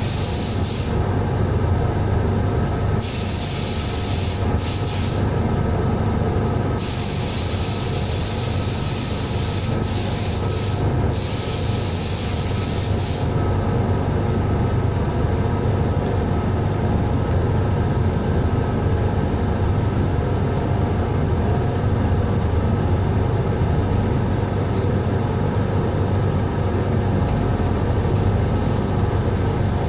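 A compressed-air gun (sandblaster or spray gun) hissing in bursts as its trigger is pulled and released, over the steady hum of a running air compressor. The bursts stop about halfway through, leaving only the compressor running.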